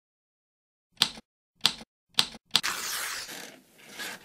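Typewriter key strikes for the title's lettering: three sharp clacks about half a second apart, then a fourth that runs into a longer rough rustling noise.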